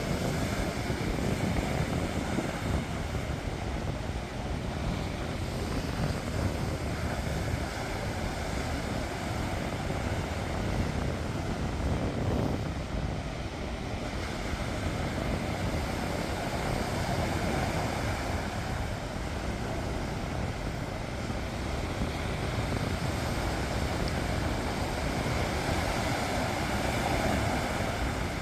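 Sea waves washing onto the shore in a steady, rumbling roar, with wind buffeting the microphone.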